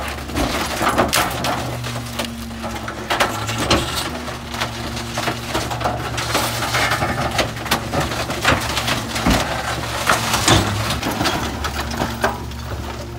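Garbage truck compactor crushing bulky furniture: many sharp cracks and splintering of breaking wood over the steady low run of the truck's engine and hydraulics.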